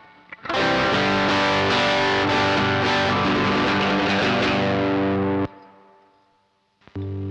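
Electric guitar, a Reverend Pete Anderson PA-1 with P90 pickups, played through a Laney Lionheart L5 Studio valve amp and taken from the amp's direct output. A chord struck about half a second in rings for about five seconds and is cut off sharply; after a short gap another chord is struck near the end.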